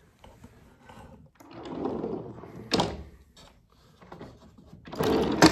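A desktop copy holder's file support sliding along its base on rollers, twice ending in a sharp knock as it comes to a stop: once about three seconds in, and again, louder, near the end.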